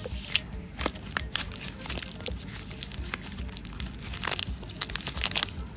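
Crinkling and crackling of a small plastic wrapper as fingers twist and tear at it to open it, in irregular bursts with a few louder crackles.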